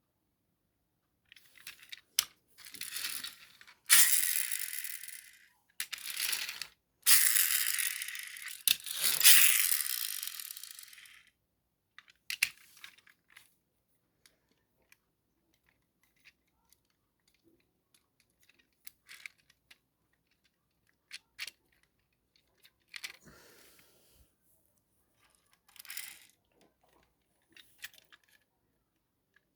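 Packaging being torn open and crinkled in several loud bursts over the first ten seconds or so, followed by scattered small clicks and rustles.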